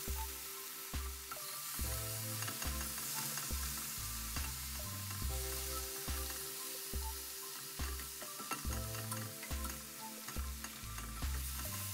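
Sliced pork and chopped garlic sizzling in hot oil in a nonstick frying pan, stirred and turned with a plastic spatula.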